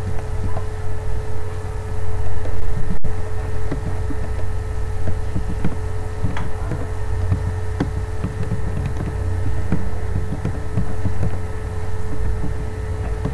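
Steady low electrical hum and rumble with a constant tone above it, and scattered short clicks of keyboard typing.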